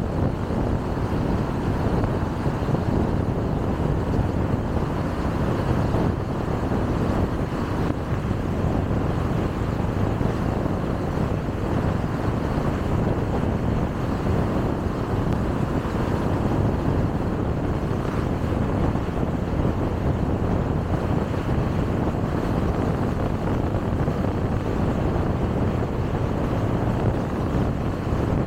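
Car driving steadily along a highway: an even rumble of tyres on the road surface, engine and wind, with no changes.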